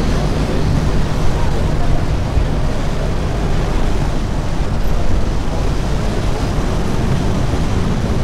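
Steady rumble of a vintage yellow Lisbon tram in motion, heard from on board as it runs along its rails: a continuous low hum of motor and wheels with no separate knocks or events.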